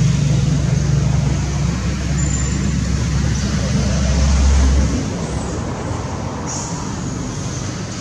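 Road traffic: a vehicle engine's low, steady drone that drops away about five seconds in, over a steady rushing traffic noise.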